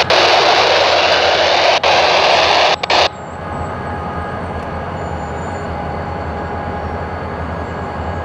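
Rail-yard train sounds: a loud rushing hiss for about three seconds that cuts off suddenly, over the steady low rumble of a train.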